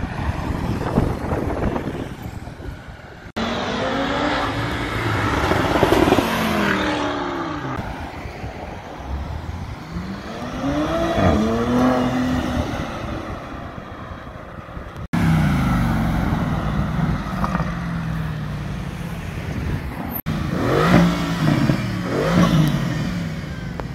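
A run of short clips of sports car engines accelerating hard away, among them an air-cooled Porsche 911, a Porsche Panamera and a Mercedes-AMG GT roadster. The engine pitch climbs and drops several times through gear changes, with blips of revving near the end.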